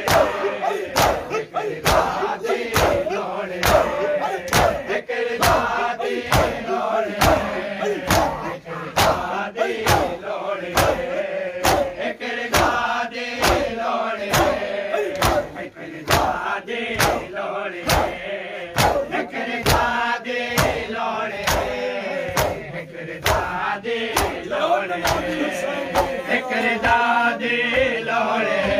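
Crowd of men chanting a noha in unison while beating their chests in matam, the hand slaps landing in a steady, even rhythm under the voices.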